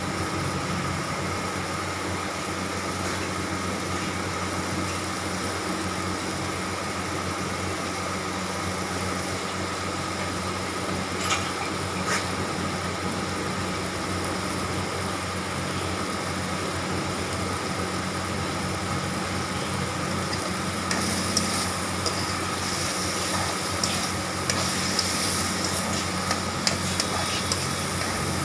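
Minced-meat patties frying in oil in a wok, a steady sizzle over a low hum, with scattered crackling pops that come much more often in the last several seconds.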